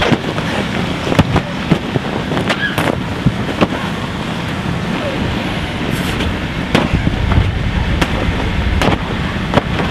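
Irregular sharp slaps and thumps of a scuffle in an inflatable bouncy boxing ring, bodies and inflatable gloves striking the vinyl, over a steady rushing noise. Low wind rumble on the microphone from about seven seconds in.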